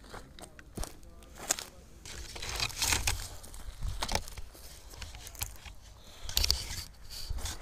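Handling noise as a phone is picked up and moved among dry cane and grass: irregular rustling, crackling and clicks with low rubbing thumps on the microphone, getting louder about two and a half seconds in.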